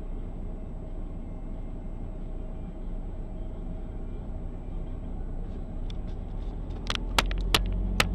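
Steady low rumble of a car's engine and road noise, heard from inside the cabin. About seven seconds in come four sharp clicks within about a second.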